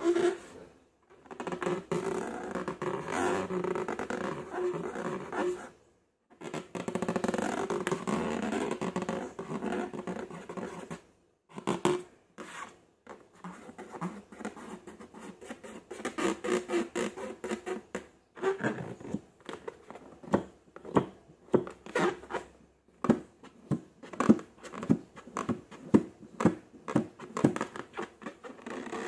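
Slime being worked by hand: stretches of continuous wet squishing, then from about a third of the way in a long series of quick sharp pops and clicks, coming faster toward the end.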